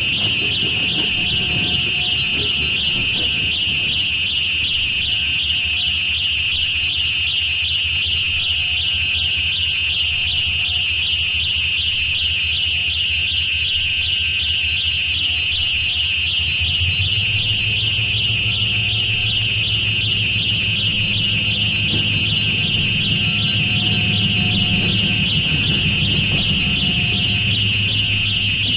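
Electronically processed railroad recording: a continuous high, fast-pulsing tone over a low droning hum. About seventeen seconds in, the hum steps up to a higher, louder pitch.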